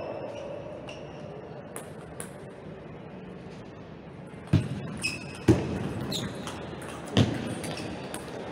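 Table tennis rally: the ball clicks sharply off the bats and the table, some clicks with a short ring. Three louder knocks come about halfway through and near the end.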